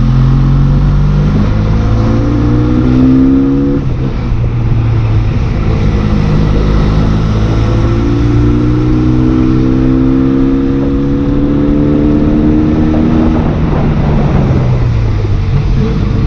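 Benelli Leoncino 500's parallel-twin engine pulling while riding. Its pitch climbs for about four seconds, drops at a gear change, climbs slowly again for several seconds, then falls off near the end as the throttle closes.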